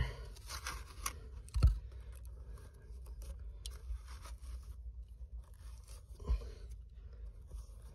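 A hand scraping and crumbling dry, clumpy dirt away from around a buried pipe end, with two dull thumps: a loud one about a second and a half in and a smaller one about six seconds in.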